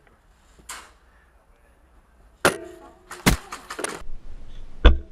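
A series of sharp knocks and clicks. The first knock carries a brief ringing tone, a few quick clicks follow the second, and a louder low thump comes near the end.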